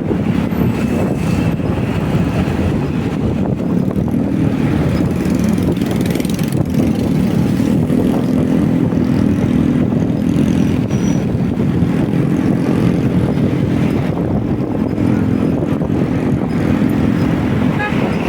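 Motorcycle engine running steadily while riding, with a constant low drone and wind rushing over the microphone.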